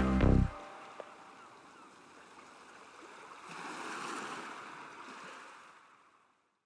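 The last note of the soundtrack music cuts off about half a second in. Then a faint wash of sea water swells and fades away.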